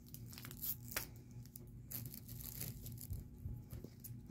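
Fingers picking and tearing at the tight plastic wrap on a plastic toy capsule ball: faint, irregular crackles and small clicks.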